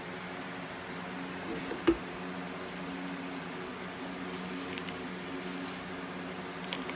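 A steady low machine hum, like a running fan, with one sharp click about two seconds in and a few faint light clicks and scrapes later on.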